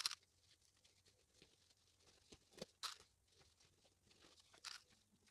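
Faint rustling of stiff satin dress fabric being handled and gathered, in a few short bursts.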